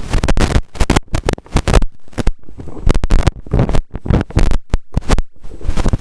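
Microphone noise: loud, irregular crackles and thumps, with short gaps of near quiet between them.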